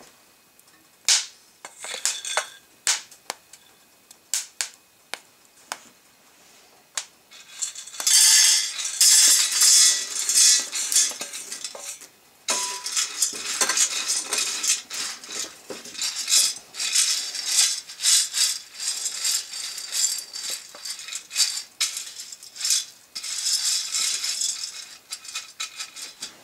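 Coffee beans rattling and clattering. A few scattered clicks at first, then from about eight seconds in a dense, busy rattle with short pauses.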